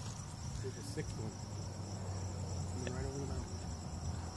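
Insects chirring steadily: a continuous, finely pulsing high trill, over a low hum.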